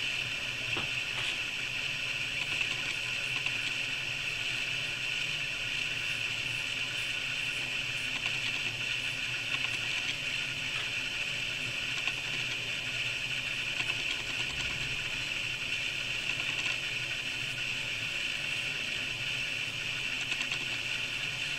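A steady hiss with a faint low hum, over which a straight razor scrapes lightly now and then across a lathered cheek.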